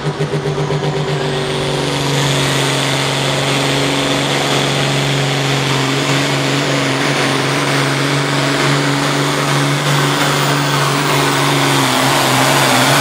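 Oliver hot-farm pulling tractor launching and pulling the sled at full throttle. The engine's lumpy pulsing gives way about a second in to a steady, loud full-power run, with a high whine climbing about two seconds in.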